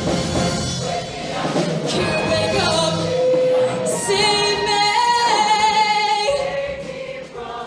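Show choir singing, several voices at once. From about four seconds in they hold long notes with vibrato.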